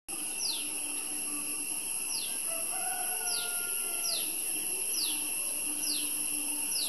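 Outdoor morning ambience: a bird repeats a short, high, falling whistle about every second and a half over a steady high-pitched insect drone. A fainter rooster crow runs through the middle.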